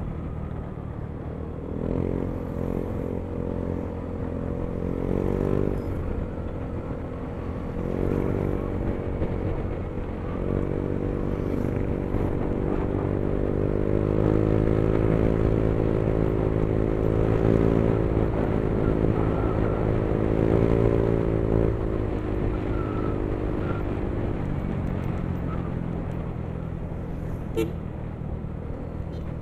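Yamaha Mio i 125 scooter's single-cylinder engine running while riding, its revs rising and falling several times as the throttle opens and eases. A brief sharp click comes near the end.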